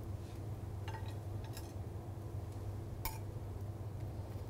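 Metal spatula clinking against the baking pan and the serving board as baked plaice is lifted off the bone: two light clinks with a short ring, about a second in and about three seconds in, and a fainter tap between them, over a steady low hum.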